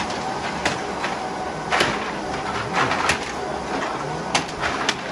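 Container deposit machine running, with irregular sharp clatters of cans and bottles dropping through it over a steady background noise.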